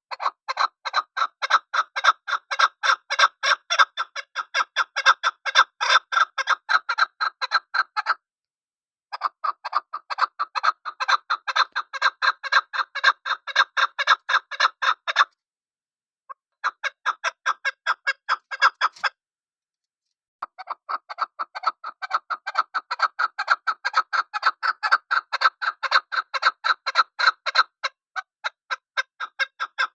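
Chukar partridge calling: a fast, even run of sharp chuck notes, about four a second, in long bouts broken by short pauses.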